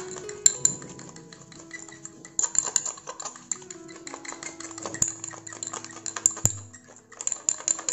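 Metal fork whipping a thick mix of instant coffee, sugar and warm water by hand in a glass bowl, clicking and clinking rapidly against the glass, with a few louder knocks about five and six seconds in.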